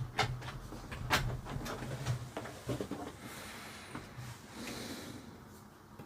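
Hands handling the small plastic parts and wiring of a toy remote-control helicopter: scattered light clicks and taps, thinning out after about four seconds, over a faint low hum that fades away.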